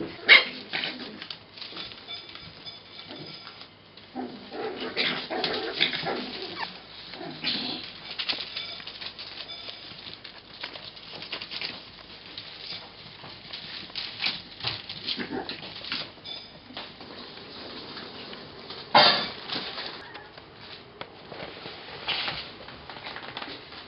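Pembroke Welsh corgi puppies play-fighting: irregular scuffling and pattering of paws with short high puppy yips, and one louder burst about four-fifths of the way through.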